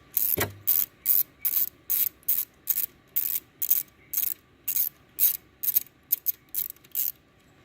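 Quarter-inch ratchet clicking in quick repeated strokes, about three a second, backing out a stock E6 bolt on the blow-off valve. A single low knock about half a second in.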